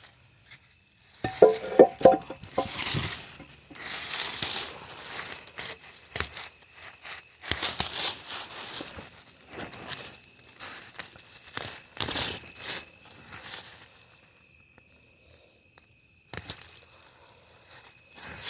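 Rustling and crunching of plants and soil being pulled and dug by hand, in irregular bursts that are loudest in the first few seconds, with a cricket chirping steadily at a few chirps a second underneath.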